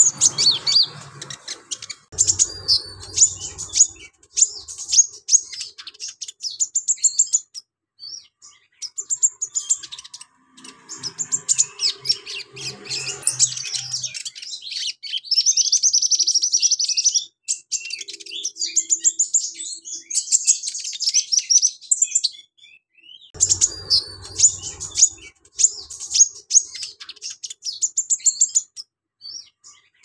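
Caged kolibri ninja (konin) sunbird singing in bursts of rapid, high chirping notes with short pauses between phrases, including one long unbroken trill a little past the middle.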